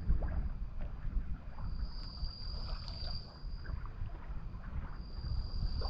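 Gusty wind buffeting the microphone in a low, uneven rumble. A thin, steady high whine fades in and out over it, rising about two seconds in and again near the end.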